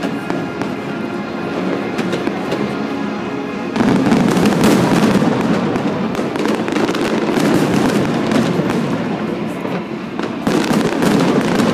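Fireworks going off over music: about four seconds in, a dense barrage of crackling bursts and bangs sets in suddenly, and it surges again near the end.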